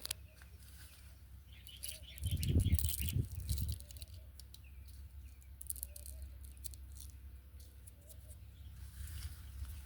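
Birds chirping, with scattered light ticks and rustles and a low rumble from about two to four seconds in.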